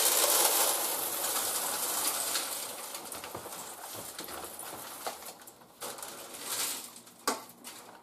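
Whole coffee beans pouring from a bag into the bean hopper of a Philips EP1200 automatic coffee machine. A dense rush of small clicks fades over about five seconds into scattered clicks of single beans.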